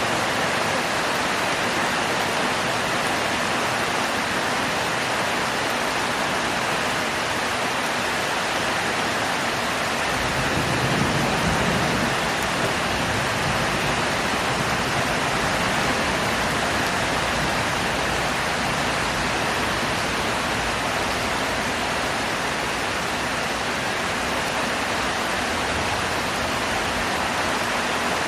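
Heavy tropical rain pouring steadily, an even hiss of downpour. A low rumble swells for a couple of seconds about ten seconds in.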